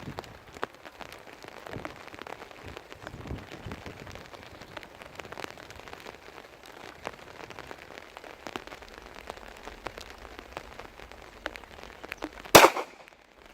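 Steady rain with many small raindrop ticks, then a single loud pistol shot from a Glock 21 in .45 ACP near the end.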